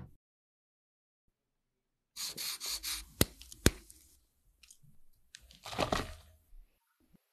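A baked cut-out cookie broken apart by hand, starting about two seconds in: a second of crumbly crackling and then two sharp snaps. Near the end, sugar poured from a small cup into a glass bowl, a soft hiss of about a second.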